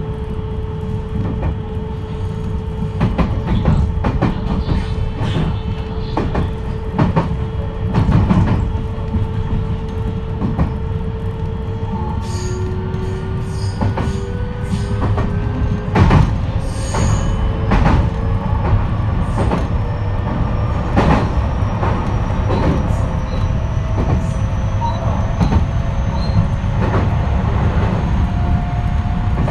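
Onboard running sound of a JR West 223 series 3000 subseries electric train with a Hitachi third-generation IGBT inverter. A steady inverter tone changes about twelve seconds in to several tones that climb steadily in pitch as the train picks up speed, over rumble and repeated wheel clicks on rail joints.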